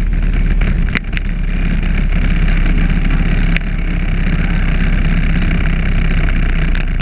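Motorcycle engine running steadily at road speed, mixed with wind rushing over the handlebar-mounted microphone. Two brief clicks come about a second in and again midway.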